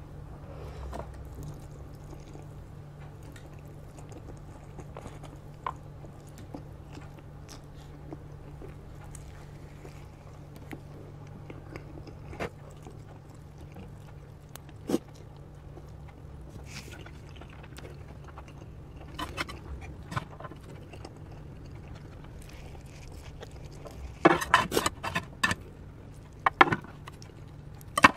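Close-up eating sounds of a person chewing and slurping instant noodles, with scattered small clicks from chopsticks. Near the end come louder clacks and scrapes as chopsticks and a ladle work over the nearly empty plate. A steady low hum runs underneath.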